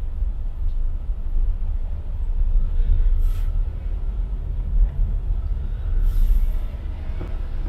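Low, steady road and engine rumble heard inside a car's cabin as it creeps along in slow city traffic, with two short hisses about three seconds in and again about six seconds in.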